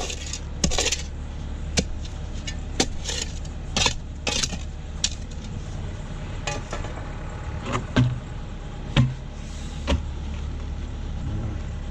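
Shovel chopping and scraping at the sides of a footing hole to square it off: irregular sharp strikes about once a second, a few landing as heavier thuds near the end, over a steady low hum.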